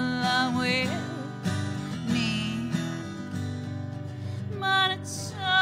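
A woman singing with an acoustic guitar strummed under her, holding and bending notes, one of them wavering about two seconds in.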